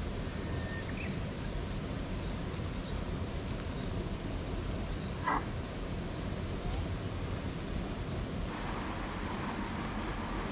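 Steady outdoor wind-like rumble with a few faint bird chirps and one brief sound about five seconds in. About eight and a half seconds in it switches to the fuller rush of a swollen stream pouring through a small concrete sluice.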